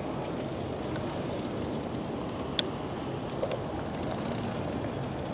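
Steady low rumbling road and wind noise from riding a bicycle through city streets, with one sharp click about two and a half seconds in.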